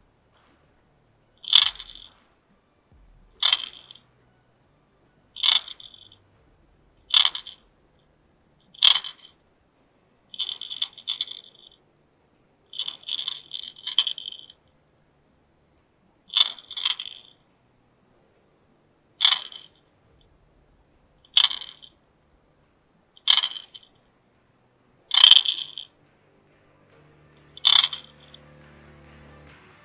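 The internal rattles of a Strike Pro Flap Jack 75S sinking lipless crankbait clattering underwater as the lure is worked. There are about a dozen short rattle bursts, mostly about two seconds apart, with a few longer rattling runs in the middle. Faint music comes in near the end.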